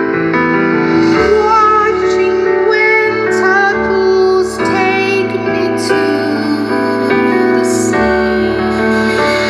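Live band music: a high female voice singing with vibrato over sustained keyboard chords.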